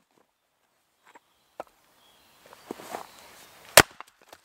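A small axe strikes down into a log stood on a chopping stump, one loud sharp crack near the end as the wood splits, after a few light knocks of wood pieces.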